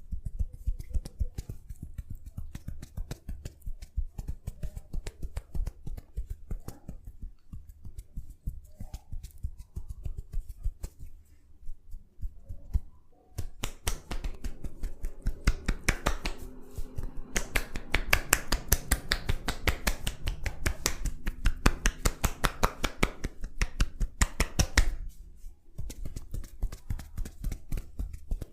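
Head massage: fast, rhythmic tapping and clicking on the head, several strokes a second. From about halfway through to near the end, a louder hiss of rubbing runs under the taps, then drops away.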